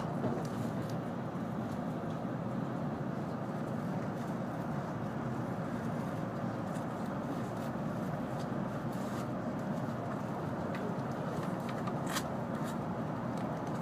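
Steady running noise inside the passenger cabin of an N700-series Shinkansen train, with a few faint sharp ticks, the clearest near the end.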